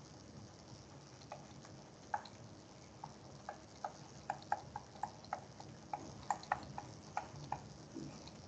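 Faint, irregular light taps of a stylus on a tablet as handwriting is written, a few short clicks a second, closest together in the middle.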